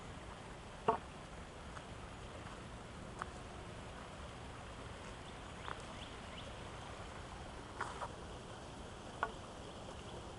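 Footsteps on concrete stepping stones across a shallow creek: five light, sharp knocks spaced a couple of seconds apart over a faint steady hiss.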